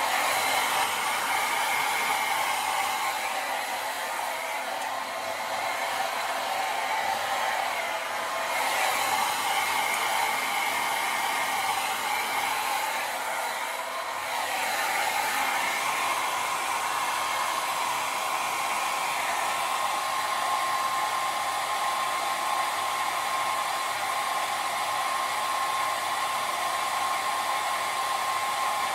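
Hair dryer running continuously, a steady rushing hiss of blown air with a motor whine. The sound eases slightly twice, and about halfway through a steadier, clearer whine settles in.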